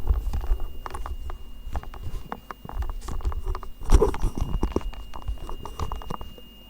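Microphone handling noise as the microphone is moved up close: irregular scraping, rustling and knocks, with one louder bump about four seconds in.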